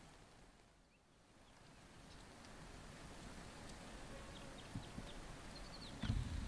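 Faint outdoor background with a few short, high chirps a few seconds in and a low thump near the end.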